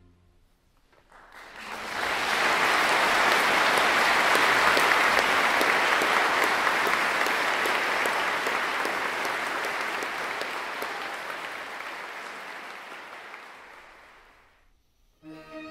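Audience applause that swells in after a brief silence, holds, then slowly dies away; string music starts again right at the end.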